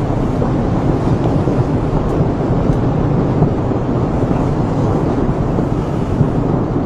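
Reventador volcano erupting with a steady, deep rumble that has no distinct blasts or pauses.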